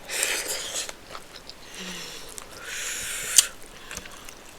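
A person eating rice and stew close to the microphone: chewing and wet mouth sounds, with two stretches of hiss-like noise of about a second each and one sharp click about three and a half seconds in.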